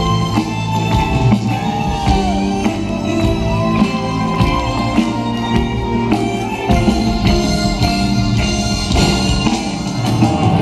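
A live band plays a loud instrumental passage with a steady drum beat and sustained chords.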